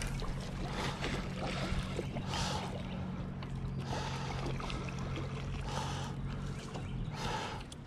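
Water sloshing against an aluminium boat hull in short washes every second or two, over a steady low hum.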